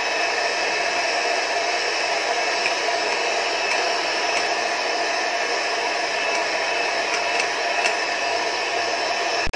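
Electric hand mixer running on high speed, a steady motor whine as its beaters whip chilled fresh cream in a glass bowl. It stops abruptly near the end.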